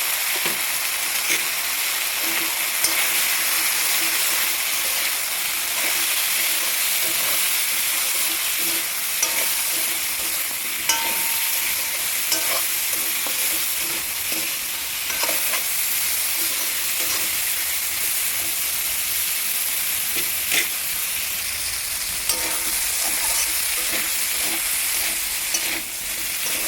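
Chicken pieces frying and sizzling in oil in a pan with added spices, stirred with a spatula that clicks now and then against the pan.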